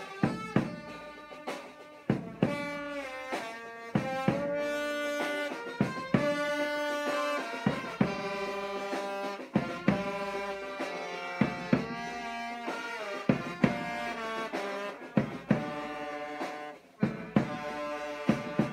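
Vietnamese funeral brass band playing a slow melody on trumpets and trombones, the notes long and held, with drum beats about once a second.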